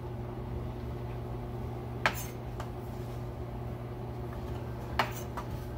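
Two sharp knocks about three seconds apart, each followed by a fainter one, as a chef's knife and diced cucumber are handled on a wooden cutting board, over a steady low hum.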